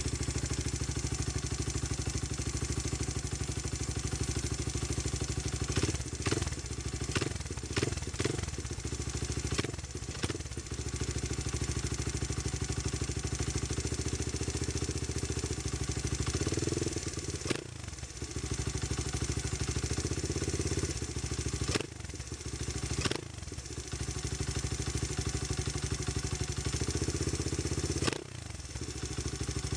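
Honda XR100 four-stroke single fitted with a BBR 120 big-bore kit, running through an FMF PowerCore 4 exhaust on its first run after a rebuild. It runs steadily at idle, with several short blips and changes in engine speed, a cluster of them about a quarter of the way in.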